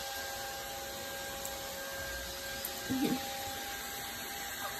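Steady background hum and hiss with a faint, high, steady tone running through it. There is one short low pitched sound about three seconds in.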